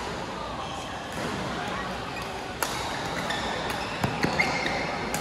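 Badminton doubles play: sharp knocks of racket hits and players' feet on the court, one about halfway through and a quick cluster of three near the end, over a murmur of voices.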